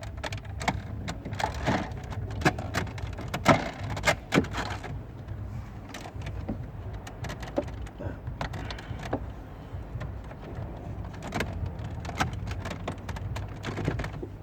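Plastic dashboard trim being handled and pushed back into place, giving scattered clicks, taps and knocks that are busiest in the first few seconds. A steady low rumble runs underneath.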